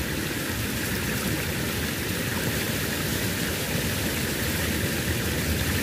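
Steady rushing of water flowing down a small ditch, an even hiss that holds level throughout.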